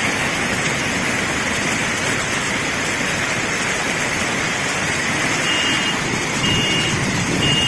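Steady loud rush of floodwater. From about five seconds in, a high electronic beep repeats roughly once a second, like an alarm going off.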